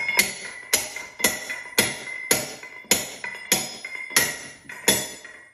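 Steel air distributor being bumped down by hand inside a Rock Hog DTH hammer's steel casing: about two metal knocks a second, each leaving the casing ringing.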